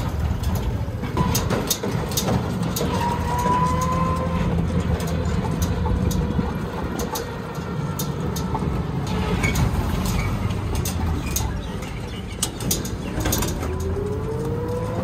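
Ride noise from an open electric rickshaw under way: a steady low rumble of road and wind, with frequent sharp rattling clicks from the frame. A few short tones sound over it, one rising near the end.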